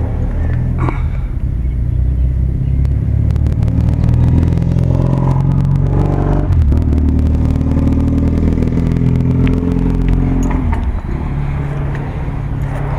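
A motor vehicle engine running close by, a low steady drone whose pitch shifts about six seconds in and drops again near the end.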